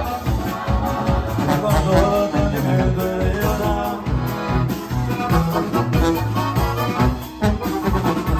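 Live norteño music from a small band: a button accordion melody over a sousaphone bass line, with bajo sexto strumming and a drum kit keeping a steady beat.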